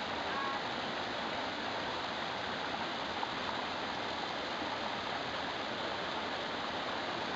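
Small mountain waterfall and stream rushing steadily over boulders.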